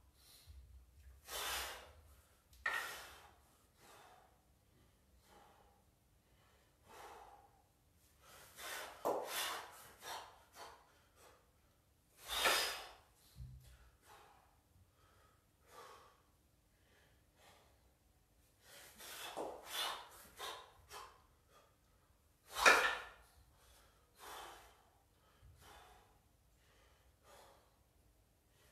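A man breathing hard from kettlebell exertion: loud, sharp gasping breaths at irregular intervals, one to a few seconds apart, with quiet gaps between. The two loudest come about halfway through and near the end.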